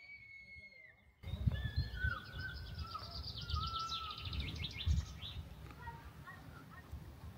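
After a quiet first second, birds chirp and sing with fast trills, over gusts of wind rumbling on the microphone.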